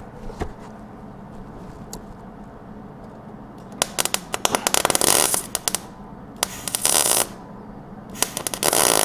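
Welder tack-welding a sheet-steel rocker panel onto a truck cab: three bursts of crackling. The first, starting about four seconds in, lasts about two seconds, and two shorter ones follow.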